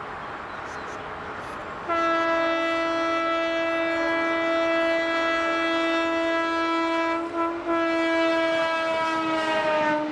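Renfe class 269 electric locomotive sounding its horn as it passes: one long blast starting about two seconds in, with a brief break just past the middle, its pitch dropping slightly near the end. Before the horn there is only the steady noise of the approaching train.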